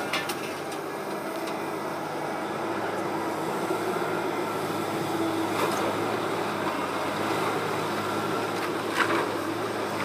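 Heavy demolition machinery's engine running steadily, with a couple of short knocks about five and a half and nine seconds in.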